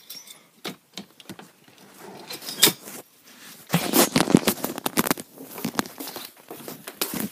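Handling noise: a run of clicks, knocks and rustling as the phone is carried and jostled close to its microphone, busiest about four seconds in.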